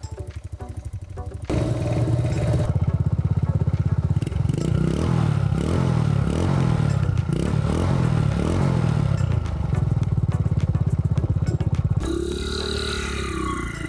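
Honda S110 Benly motorcycle engine running with a rapid, even exhaust pulse, getting louder about a second and a half in. Near the end it gives way to a different sound with gliding tones.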